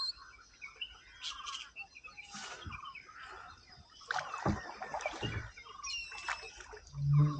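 Many birds calling at once in a nesting colony, a mix of short chirps and clucking calls from several birds. A short, loud, low-pitched call comes near the end.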